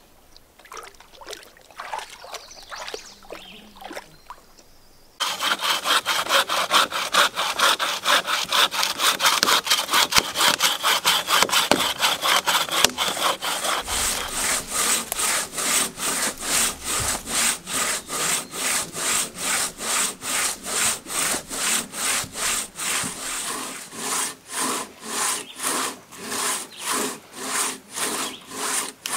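Hand saw cutting through a felled log in steady back-and-forth strokes, about two a second. It starts suddenly about five seconds in and keeps an even rhythm.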